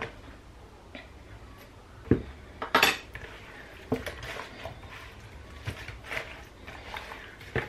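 Scattered clinks and knocks of a metal spoon against a plastic mixing bowl and a wooden cutting board while whole tilapia are turned by hand in their marinade. The sharpest clink comes about three seconds in.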